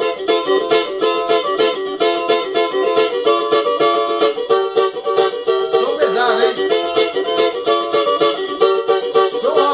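A budget cavaquinho strummed in a quick, steady rhythm, with chords and melody notes ringing out together.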